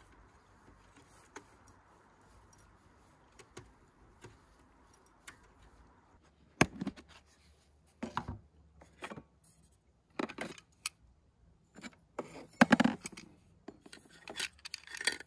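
Faint steady hiss, then a run of sharp clicks, knocks and light metallic clatter from small hard objects being handled, starting about halfway through and busiest near the end.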